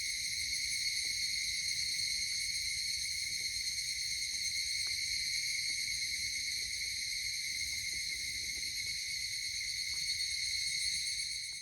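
Steady insect chorus: a continuous high-pitched shrill drone, with no breaks or pulses.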